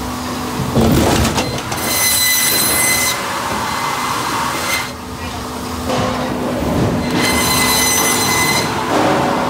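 Pezzolato TLA 15 firewood processor running: its 1500 mm disc saw cuts through logs twice, each cut a high whine lasting about a second, over a steady machine hum. A clatter of wood about a second in is the loudest sound.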